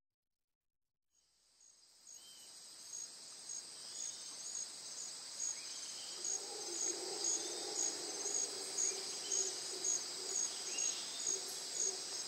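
Cricket and insect chorus fading in: a steady high shrill with regular chirps nearly two a second, and a few brief bird calls. A low steady drone joins about halfway through.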